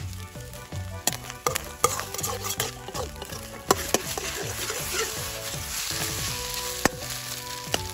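Fried rice sizzling in a carbon-steel wok (Chinese wok) over a high campfire flame, stirred with repeated sharp knocks of a utensil against the pan. The sizzling is strongest about two-thirds of the way through.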